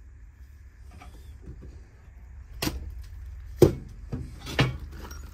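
A few sharp knocks and clunks as dusty old objects are picked up and set down on a wooden shelf, the loudest a little past halfway.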